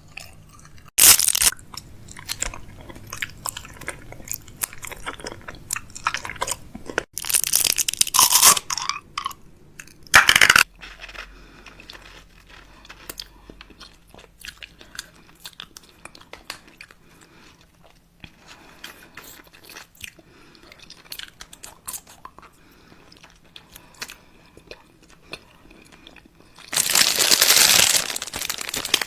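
Crunchy chewing and biting: many short, crisp crunches, with several louder bursts in the first third and a long, loud crinkling rustle near the end.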